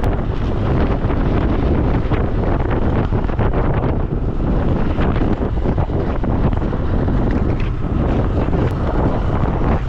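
Strong wind buffeting the microphone on a moving motorcycle: a loud, dense, steady rumble.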